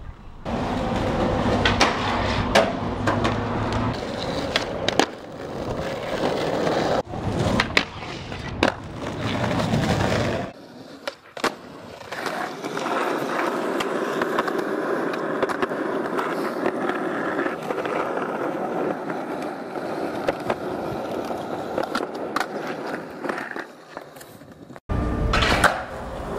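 Skateboard wheels rolling on concrete, with sharp clacks of the board striking the ground through roughly the first ten seconds. Then comes a long stretch of steady rolling, and a few more clacks near the end.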